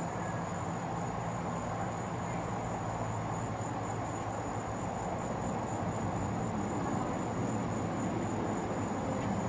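Steady outdoor night ambience: a constant high-pitched tone over a wash of distant noise, with a low hum that fades over the first few seconds.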